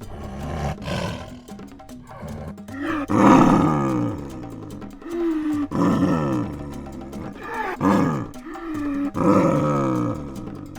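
A big cat roaring: four long calls, each sliding down in pitch.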